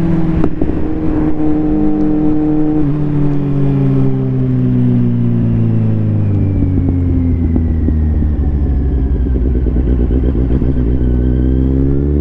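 Kawasaki Z750R's inline-four engine running under way. Its note steps down about three seconds in, then falls slowly as the bike slows, and rises again near the end as it speeds up.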